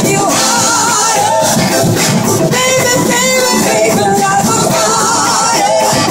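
Live rock band playing a funky groove: electric guitars, drums and a singer at the microphone.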